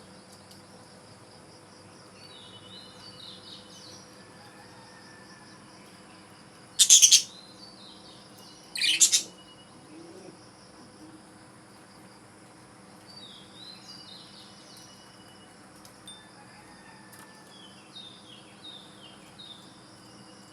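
Budgerigars chirping and warbling softly, with two loud, harsh squawks a couple of seconds apart partway through.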